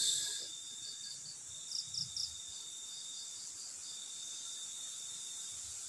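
Crickets and other night insects trilling in a steady, high, continuous chorus, with a short run of three louder chirps about two seconds in.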